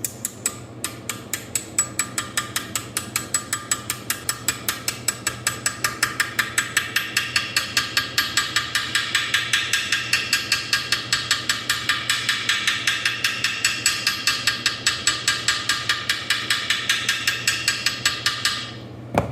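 Steel hammer blows tapping a tapered roller bearing's outer race (cup) into its bore in a cast transmission housing: a long, even run of sharp ringing metal taps, about four to five a second, that grows louder over the first several seconds and stops just before the end as the race seats fully.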